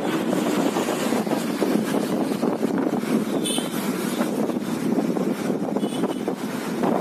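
Steady rushing of fast-flowing floodwater swirling around a bridge pier.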